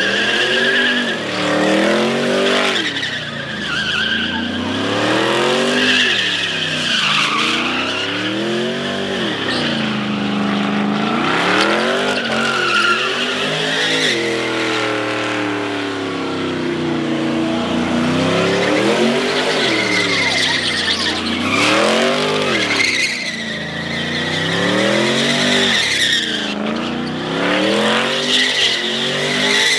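A car engine revving hard, its pitch rising and falling every couple of seconds, as the car slides in circles, with tyres squealing throughout.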